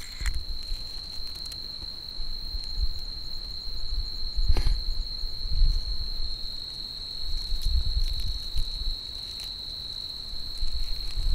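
A cricket trilling steadily on one high note. Low thumps and rustles come and go under it, with a sharp click about four and a half seconds in.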